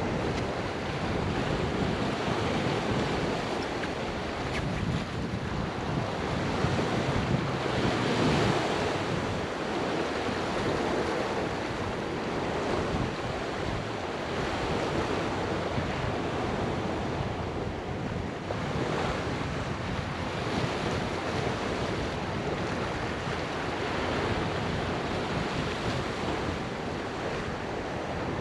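Surf washing onto the beach with wind buffeting the microphone as the tide comes in fast; waves break louder about eight seconds in and again near nineteen seconds.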